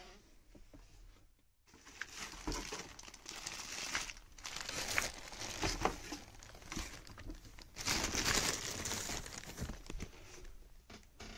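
Packaging being handled: irregular crinkling and rustling, with small knocks, swelling and easing off several times.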